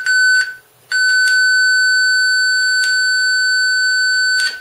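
A steady 1510 Hz triangle-wave test tone played loud through a speaker driven by an 8002 class AB amplifier board. It cuts out briefly about half a second in, then holds with a few clicks from the hand-held speaker connection.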